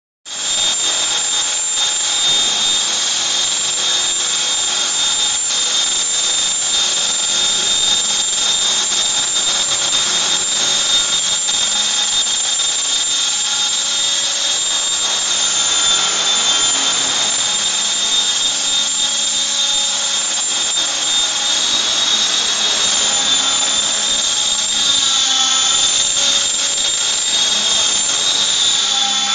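Align T-Rex 500 electric RC helicopter hovering: a steady high-pitched whine from its motor and gears over the rotor noise, the pitch wavering slightly in the second half.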